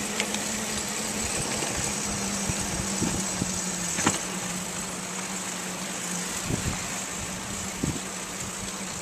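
Steady rolling noise of a recumbent trike on the move: wind and tyre hiss with a constant low hum, broken by a few light knocks.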